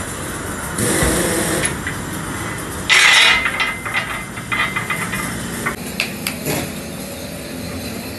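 A long flat steel bar scraping and clanking against a steel wheel hub: a loud ringing scrape about three seconds in, then a rattle of quick metallic knocks, over a steady mechanical hum.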